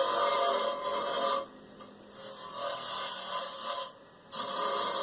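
Small electric power tool grinding a notch into a part. It runs in three passes with short pauses, about one and a half seconds in and again near four seconds.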